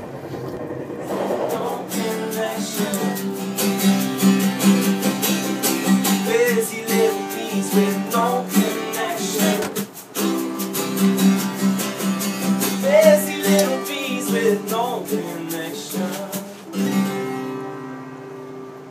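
Acoustic guitar strummed in a steady rhythm, with a voice singing over it. The playing comes in about a second in and grows quieter near the end.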